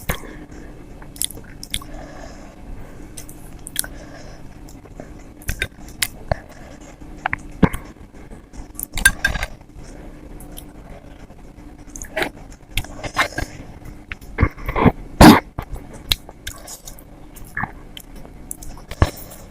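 Close-miked mouth sounds of someone eating idli with sambar and chutney: irregular wet chewing and smacking, loudest in a cluster about 15 seconds in. A faint steady hum sits underneath.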